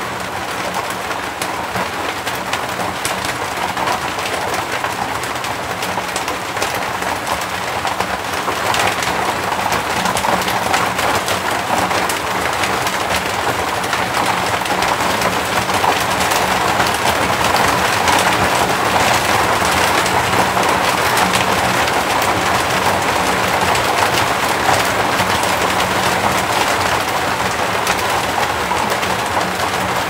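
Rain falling on asbestos-cement (fibre-cement) roof sheets, heard from inside under the roof: a dense, steady patter that grows heavier after about eight seconds.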